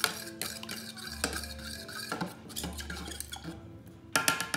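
A kitchen utensil scraping and tapping against a dish, with a louder ringing clink near the end.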